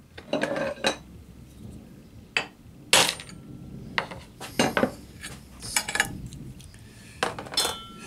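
Small metal tools and a brass workpiece being handled and set down on a stone surface plate: a string of separate sharp clinks and knocks, the loudest about three seconds in, and one with a short metallic ring near the end.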